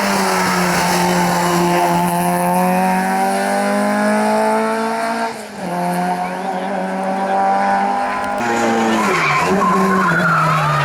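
Hillclimb race car engine running hard at high revs, its pitch climbing slowly, with a brief lift about halfway. Near the end the engine note falls away while the tyres squeal through a corner.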